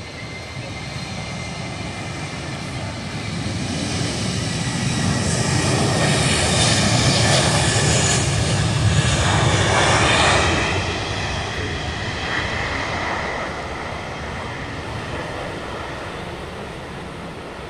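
China Airlines Airbus A330's twin jet engines at takeoff power during the takeoff roll, a loud roar with a whine in it. It builds to a peak over the middle of the clip, drops off after about ten seconds and fades as the jet rolls away.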